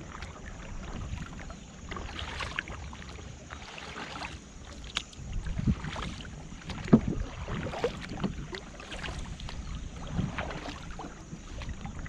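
Kayak paddling: a double-bladed paddle dipping and pulling through river water, with a splash and swish every couple of seconds, the sharpest about halfway through. Under it runs a low wind rumble on the microphone.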